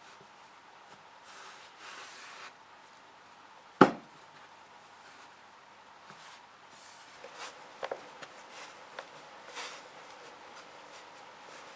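Hands kneading and shaping bread dough on a floured countertop: soft rubbing and pressing, with one sharp knock about four seconds in and a few light clicks and taps later on.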